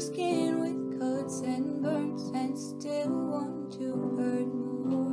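Music: a slow song with strummed acoustic guitar chords, which change about once a second.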